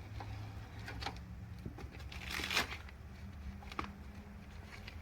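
Plastic packaging wrap being peeled off and crumpled, with scattered crackles and one longer rustle about two seconds in, over a low steady hum.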